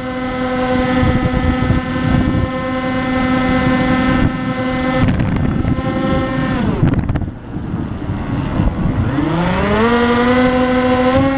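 RC plane's motor and propeller running at a steady pitch with wind rushing over the onboard microphone. About six and a half seconds in the motor spools down almost to a stop, then a couple of seconds later spools back up to the same pitch as the throttle is opened again.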